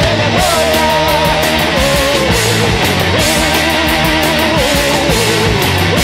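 Rock music with a wavering electric guitar lead over a steady drum beat.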